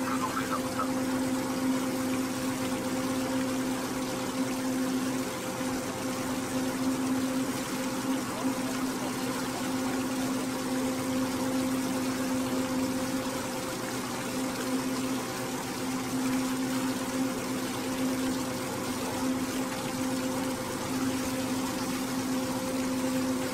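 Tour boat's engine running steadily, a constant low drone, under an even hiss of water and wind as the boat cruises across the lake.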